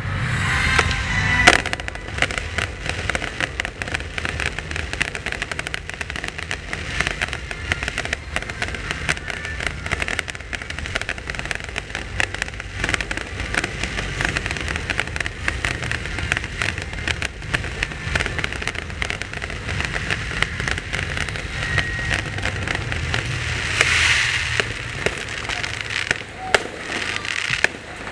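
Fireworks display: a continuous dense crackling and popping of bursting shells, with a sharp bang about a second and a half in.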